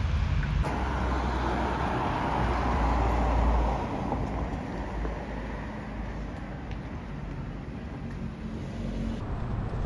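Road noise of a moving vehicle: a steady rumble and hiss, its deep rumble easing about four seconds in.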